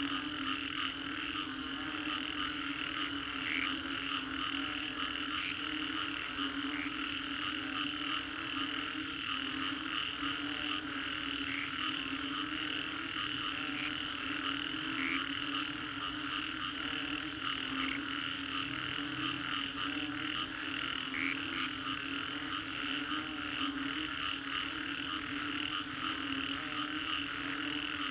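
Dense chorus of many frogs calling at once after rain, a steady low droning layer under a higher continuous layer. Now and then a single brief louder call stands out.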